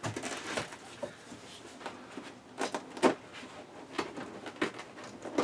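Hands working a power car seat's upholstery and plastic trim free: rustling fabric with a few sharp clicks and knocks.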